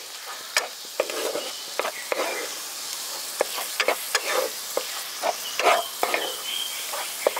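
Chhana and sugar syrup sizzling in a hot kadai while a spatula stirs it, scraping and clicking against the pan in irregular strokes. The sizzle is the mixture cooking down as its water dries off.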